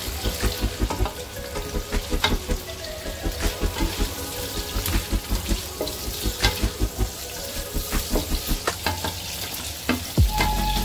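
Shrimp, lotus root slices and ginger sizzling in hot oil in a nonstick wok, stirred continuously with a spatula whose quick strokes scrape and knock against the pan.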